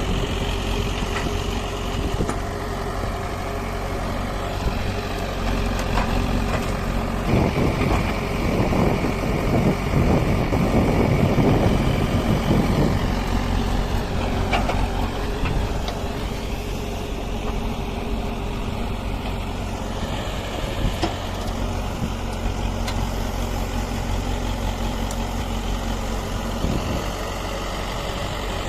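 Diesel engine of a JCB 3DX backhoe loader running steadily. It grows louder and rougher for about five seconds near the middle, then settles back.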